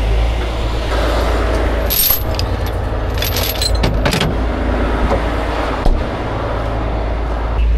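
Heavy rotator tow truck's diesel engine idling steadily, with metal recovery chains clinking and rattling about two seconds in and again for about a second around three to four seconds in.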